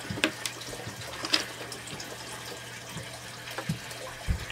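Hands untangling and handling plastic-coated cables and small plastic parts: scattered light clicks and rustles, a few sharper ones, over a steady low hum.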